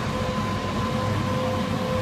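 Engine running steadily: a low rumble with a constant whine.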